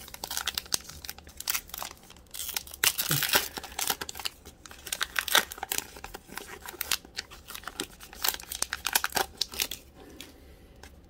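Foil wrapper of an Upper Deck hockey card pack being torn open and crinkled by hand: a rapid, irregular run of sharp crackles and rips that thins out near the end.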